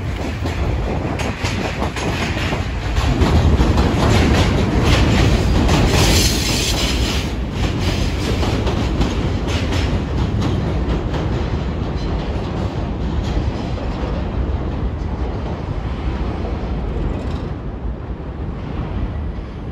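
New York City subway train running past, its wheels clicking over the rail joints, with a brief high screech about six seconds in. The sound eases off near the end.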